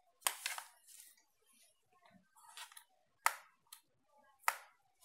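Hands handling a rotary hammer and its accessories: a few sharp plastic-and-metal clicks and knocks, with short rustles between them.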